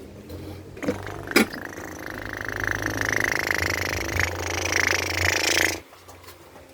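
A child imitating a helicopter with his voice: a fast, fluttering buzz held for about five seconds that stops suddenly.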